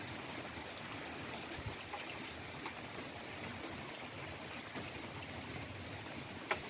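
Steady rain falling, an even hiss with scattered individual drop hits and a sharper tick near the end.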